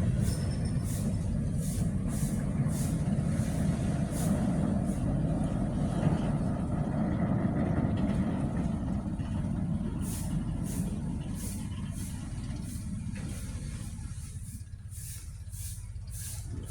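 Diesel engine of a concrete transit mixer truck running and moving off, a steady low rumble that slowly fades over the second half.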